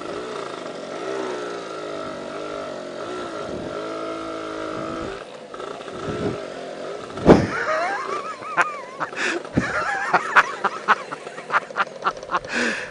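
Lambretta scooter's single-cylinder two-stroke engine running at low speed with its pitch rising and falling as it crawls over a soft, rough gravel track. Over the second half, sharp knocks and rattles break in over the engine.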